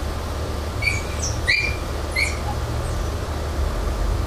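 Four short, high chirps within about a second and a half, over a steady low rumble.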